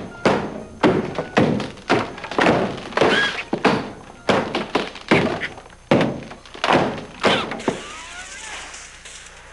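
A quick run of hard knocks or thunks, about two a second and each ringing on briefly, stopping near the end.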